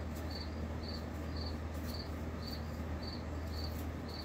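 A cricket chirping in an even rhythm, about two chirps a second, over a low steady hum.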